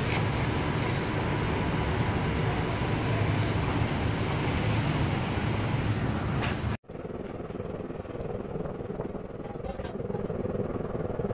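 Steady outdoor hiss, then a sudden cut about seven seconds in to the quieter, steady hum of a small hatchback's engine and tyres heard from inside the cabin while driving.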